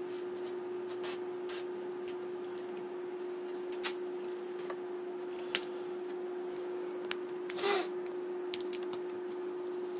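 A steady, single-pitched hum from the powered mini CNC machine standing still, with a few faint clicks. Near the end comes a short rustle of handling.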